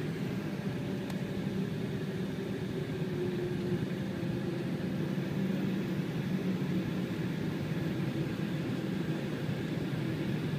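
Steady airliner cabin noise inside an Embraer E190: an even hum from its engines at low, unchanging power, with a constant hiss of air over it.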